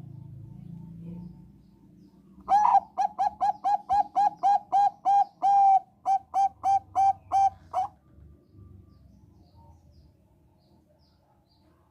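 Zebra dove of the Thai 'bangkok' perkutut strain singing: a fast run of about eighteen short, clipped coos, roughly three a second, with a brief break partway through. The song starts a couple of seconds in and stops about two-thirds of the way through.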